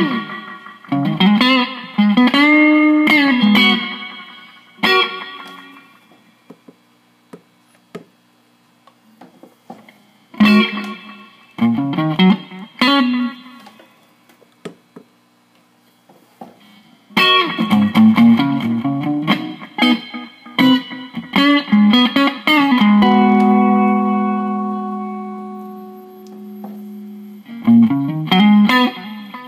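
Electric guitar played through an MXR Carbon Copy analog delay pedal into a small amp: short phrases of picked notes with string bends, separated by pauses, and a long held note that slowly fades near the end. The pedal is being tested after repair.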